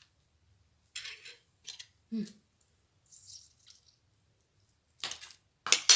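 A metal spoon against a cup: a few soft taps and scrapes, then sharp clinks twice near the end, as lemon juice and honey are mixed into a hot thyme infusion.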